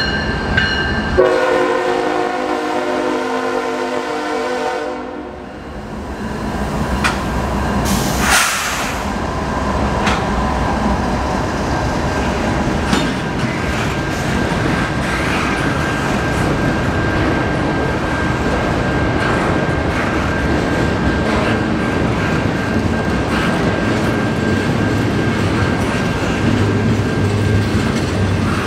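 Freight locomotive horn sounding, with a short break about a second in, then a longer blast that fades out around five seconds in. The train then rolls past with a steady rumble and wheel clatter, a faint steady high tone above it, and a couple of sharp knocks around seven and eight seconds in.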